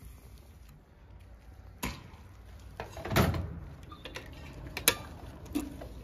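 A few scattered metallic clicks and knocks from handling a motorcycle's petrol tank filler cap and the fuel pump nozzle; the loudest is a knock about three seconds in, followed by a sharp click near the end.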